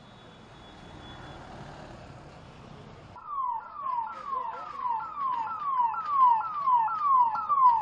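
Street noise, then about three seconds in an ambulance siren starts: a fast yelp of falling sweeps, about two a second, getting louder.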